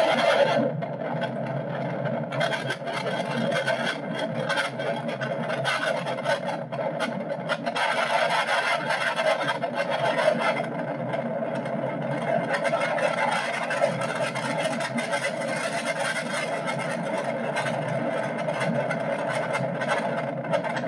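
Steady noisy rumble with a constant mid-pitched drone and no bass at all, as recorded by an SJCAM C110+ action camera with a sound fault.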